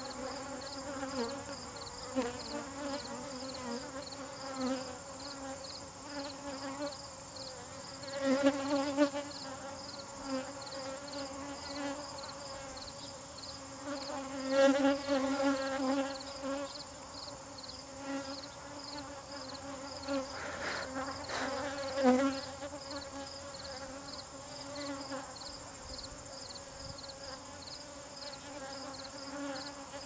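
Honeybees buzzing around an opened top bar hive, a steady hum that swells louder and fades away several times.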